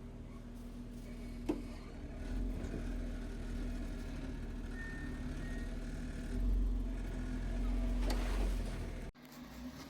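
Off-road Jeep engine running at low revs while crawling over rock, with the throttle pushed harder twice, briefly about two and a half seconds in and longer near the end. A single sharp knock about a second and a half in; the sound cuts off abruptly shortly before the end.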